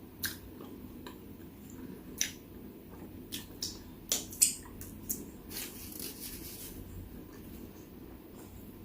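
Close-miked chewing and mouth sounds of someone eating chicken wings: a dozen or so short clicks scattered over several seconds.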